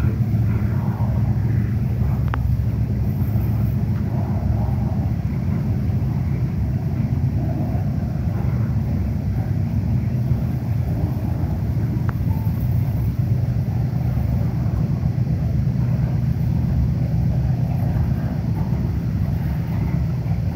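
CSX coal train's loaded coal cars rolling past, a steady low rumble of wheels on the rails.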